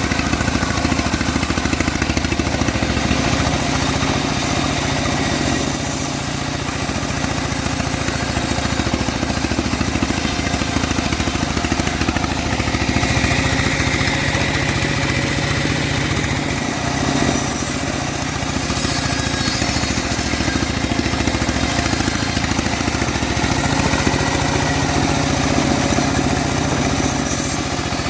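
Engine-driven homemade bandsaw mill running steadily, the engine note easing slightly twice.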